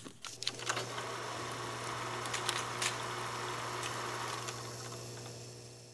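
Old-film crackle sound effect under an outro animation: a steady low hum with hiss and many scattered clicks and pops, fading out at the very end.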